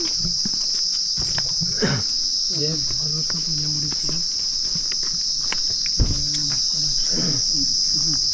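Steady high-pitched drone of insects in the trees, with a low voice murmuring at times over it and a single low thump about six seconds in.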